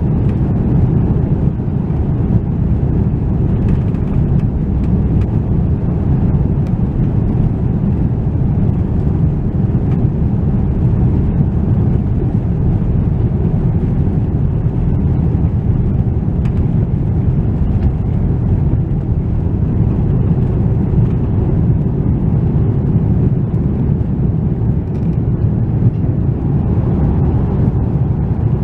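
Steady, loud low rumble of an Airbus A330-300's jet engines and airflow, heard from inside the passenger cabin around takeoff.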